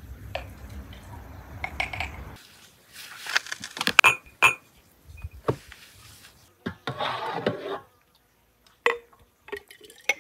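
Glass jars and a ladle clinking, with the sharpest clinks about four seconds in, and liquid being ladled from an enamel basin into a glass jar near the middle. A rushing noise fills the first two seconds.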